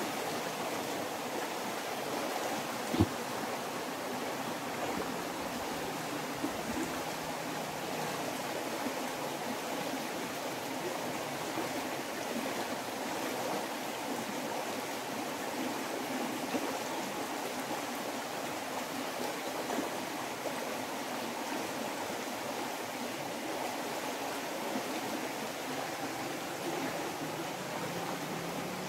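Steady rush of flowing stream water, with a single sharp knock about three seconds in.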